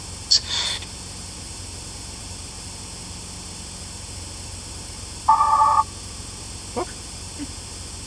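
GhostTube spirit box app sweeping: a steady hiss with short clipped fragments cutting through. There is a brief high burst just after the start and a half-second tonal snatch, like a few notes of music, about five seconds in, then a click.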